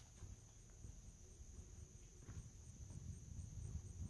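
Faint insect chorus: a steady high-pitched trill with a soft chirp repeating about four times a second, over a low rumble.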